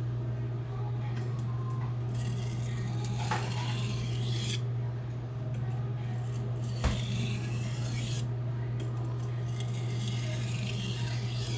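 Blue #2 steel kitchen knife blade scraping back and forth on a whetstone in a few long stretches of strokes, with one sharp knock about seven seconds in. A steady low hum runs underneath.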